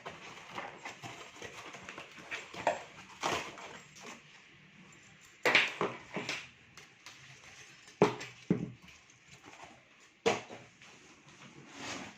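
Packaging and machine parts being handled during unboxing: irregular rustling with several sharp knocks, the loudest about five and a half, eight and ten seconds in.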